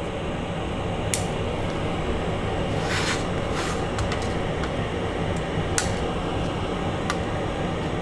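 Wire cutters snipping off the excess wire leads of bulbs soldered onto an instrument-cluster circuit board: a few sharp clicks spread out, over steady background noise.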